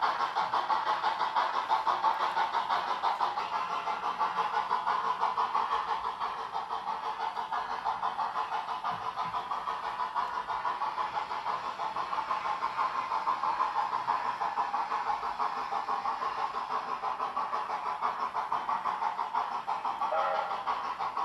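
Sound decoder of a ROCO HO-scale USATC S160 model steam locomotive playing a steady, rapid steam chuff through its on-board speaker as the model runs along the track.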